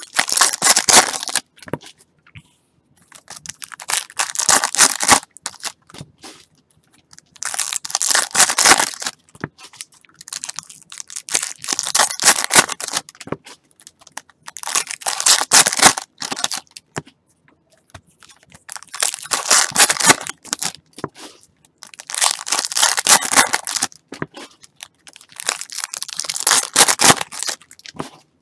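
Wrappers of 2019 Topps Series 2 baseball card packs being torn open and crinkled, one pack after another: about eight bursts of crackling, roughly every three and a half seconds.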